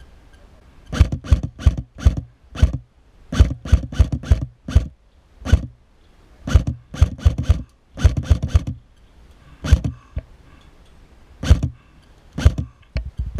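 Airsoft rifle firing single shots in quick, irregular strings, about two dozen sharp cracks in all, with short pauses between the strings.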